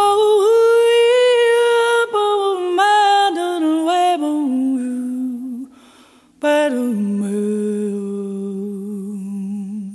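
Female jazz vocalist singing a wordless line alone, without the band. A string of short sung notes comes first, then a break of about a second, then a long low note held with vibrato.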